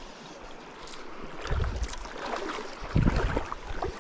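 River water running, with two louder sloshing surges about a second and a half and three seconds in.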